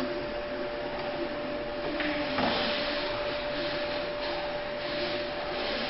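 Steady hiss with a constant hum tone, and a couple of faint clicks about two seconds in as a rubber timing belt is worked onto a 3D-printer carriage's belt clip.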